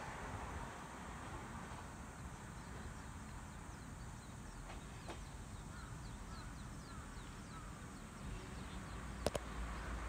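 Faint outdoor ambience with birds chirping softly in a quick series of short calls in the middle. A sharp double click comes about nine seconds in.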